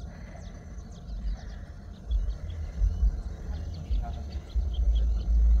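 Wind buffeting the microphone, a low rumble in gusts that grow stronger near the end, with birds chirping in short calls throughout.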